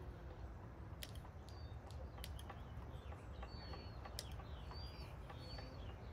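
Faint bird chirps, short and high, several times over a low background rumble, with scattered light clicks.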